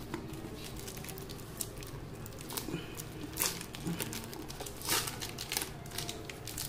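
Tan packing-tape wrapping being peeled and crumpled by hand: irregular crinkling and crackling rustles, with a few louder crackles in the middle and later part.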